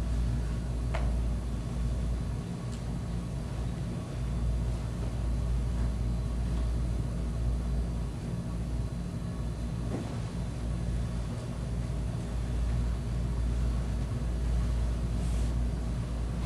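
Steady low rumble of room background noise, with a few faint knocks about a second in and again near the middle.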